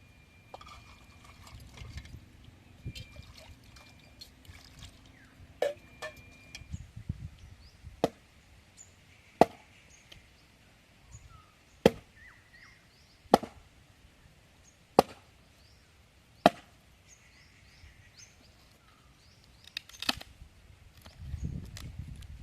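Chopping: a run of six sharp, single strikes about a second and a half apart through the middle, with a few lighter knocks before them.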